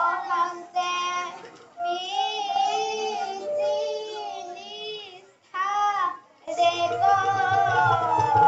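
A single high voice singing melodic phrases broken by short pauses. A lower, steady instrumental backing comes in about two-thirds of the way through.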